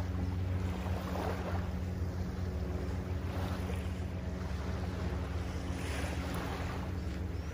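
Small waves washing onto a sandy beach, swelling and falling away every couple of seconds, over a steady low engine hum and some wind on the microphone.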